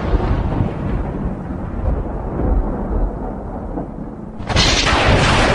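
Thunder sound effect: a long rolling rumble that fades, then a second loud thunderclap about four and a half seconds in.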